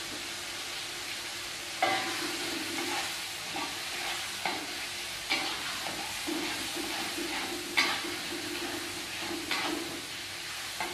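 Ground green chilli frying in oil in a wok, a steady sizzle, with a spatula scraping and knocking against the pan every second or so from about two seconds in.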